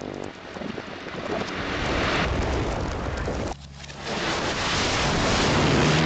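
Cartoon sound effect of loud rushing, wind-like noise that swells up, cuts out sharply about three and a half seconds in, then swells again.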